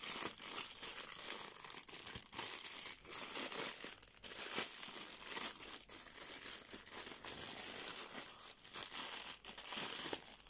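Clear plastic wrapping crinkling and rustling continuously as hands pull it apart and unwrap a small boxed-in figure.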